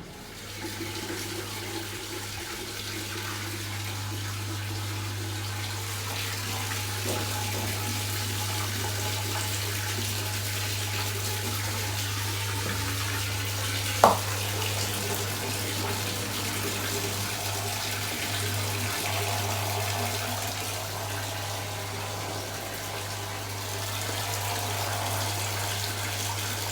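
Wash water draining out of a Hisense 10 kg semi-automatic twin-tub washing machine, a steady rush of water over a steady low hum. One brief sharp sound about halfway through.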